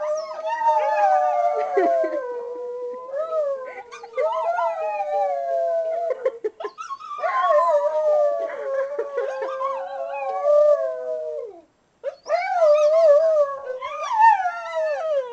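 A dog howling in long, wavering, drawn-out tones, three long stretches with short breaks between them, each sliding down in pitch at its end.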